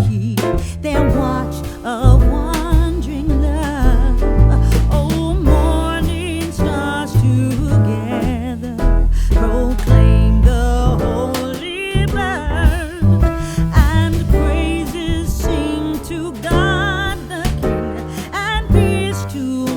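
Background music: a soul-style song with a sung vocal, bass and a steady beat.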